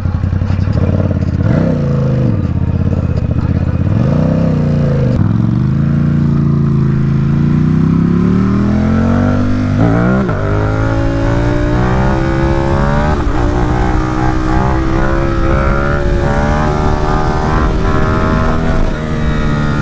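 Ducati SuperSport 950 S's V-twin engine under way: the revs dip and pick up again a few times, then climb steadily through the gears, dropping sharply at upshifts about ten and thirteen seconds in.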